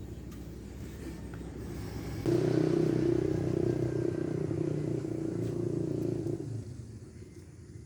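A motor vehicle's engine running close by. It rises suddenly to a steady, louder hum about two seconds in, holds for about four seconds, then fades away.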